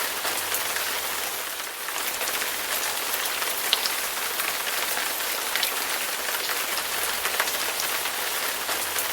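Steady rain falling: a dense, even hiss with scattered sharp ticks of individual drops.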